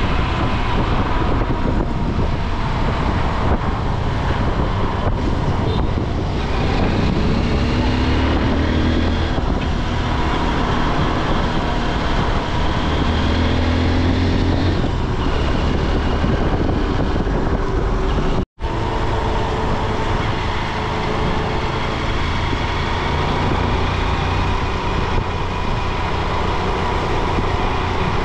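Motorcycle engine running while riding along, with wind and road noise. The revs rise twice in the middle of the stretch. The sound drops out for an instant about two-thirds of the way through.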